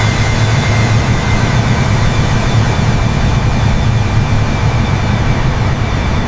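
Jet airliner's engines running at high power on the takeoff roll: a loud, steady rumble with a rushing hiss.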